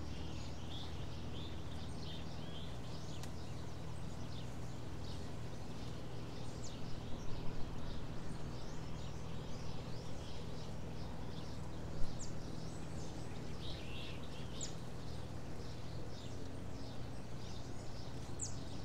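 Small birds chirping and singing in short, high calls throughout, over a low steady hum that fades about halfway through. A single sharp click sounds about twelve seconds in.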